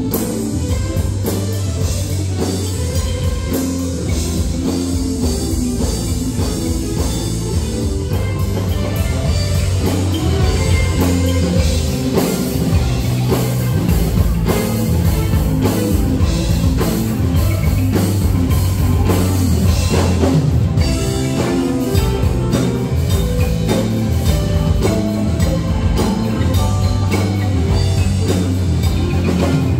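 Live band playing an instrumental passage with a steady beat: drum kit and bass guitar, with a kolintang, the Minahasan wooden xylophone, struck with mallets.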